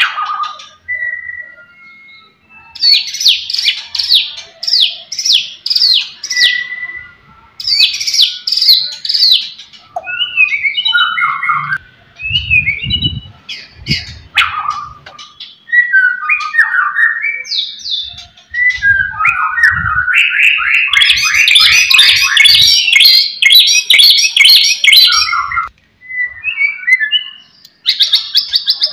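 White-rumped shama (murai batu) singing loud and continuously. Fast rattling runs of rapid high notes alternate with varied short whistled phrases that slide up and down.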